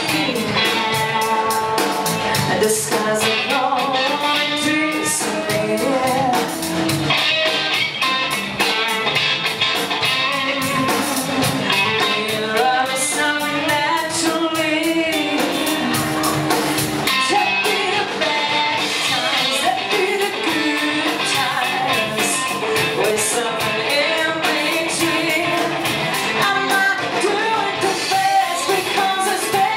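Live rock band playing: a lead singer sings into a microphone over electric guitar, bass guitar and drums keeping a steady beat.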